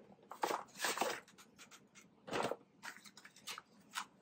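Cardboard scraping and rustling in a few short bursts as a small cardboard insert is pulled out of a larger cardboard box.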